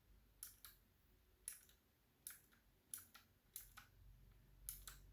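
Blue switches of an HP GK400Y mechanical keyboard clicking as keys are pressed one at a time: a series of faint, sharp clicks, several in quick pairs, spaced irregularly.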